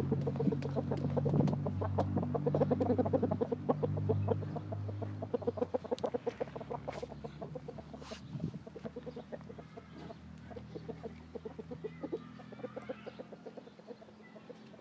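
Roosters clucking in a quick run of repeated calls, loudest over the first six seconds and fainter after.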